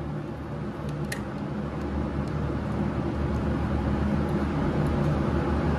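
A motor vehicle engine running, a low steady hum that grows slowly louder, with a light click about a second in.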